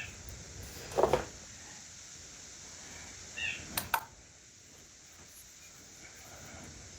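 A few light knocks and sharp clicks as a hand tool is set on a wooden workpiece, with a brief faint chirp about three and a half seconds in.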